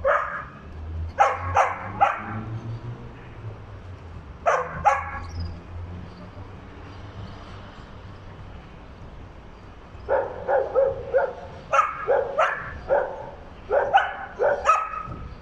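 A dog barking in short, sharp barks: a few scattered barks at first, a quiet spell, then a quick run of barks in the last five seconds.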